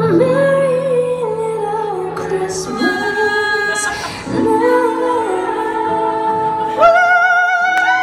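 A female voice sings a pop vocal line over backing music, with held notes and runs. Near the end it holds a long high note with wide vibrato.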